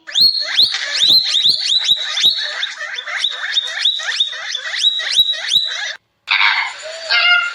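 An animal calling in a rapid series of short squeaks that sweep upward in pitch, about three to four a second. The calls stop abruptly about six seconds in. A different, harsher call with a held pitch starts after a brief silence near the end.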